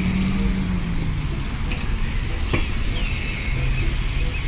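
Double-decker buses driving past in street traffic, their engines running with a low note that drops in pitch over the first second and a half. A sharp click comes a little past halfway, then a brief high squeal that slides down in pitch.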